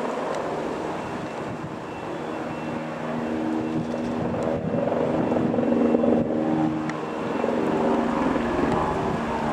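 Eurocopter AS355 F1 Ecureuil 2 twin-turbine helicopter running, a steady hum of turbines and rotor with several held tones, growing louder about halfway through.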